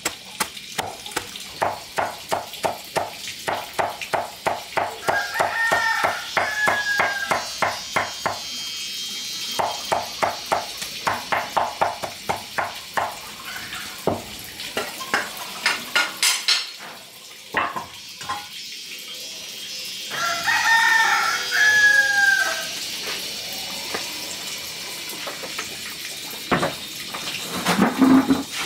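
Chickens calling, with crowing among the short pitched calls. Through the first half there is also a rapid run of knocks, about two to three a second.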